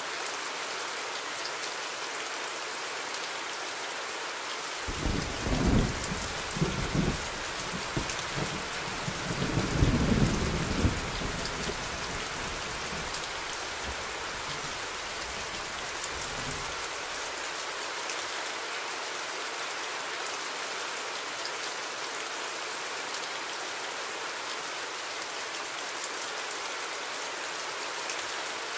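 Steady rain falling as an even hiss, with a roll of thunder that starts rumbling about five seconds in, swells to its loudest a few seconds later and dies away over the next several seconds.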